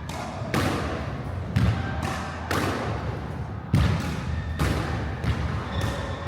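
Squash rally: the ball struck by racquets and smacking the court walls, about eight sharp hits at uneven intervals, each with a short echo.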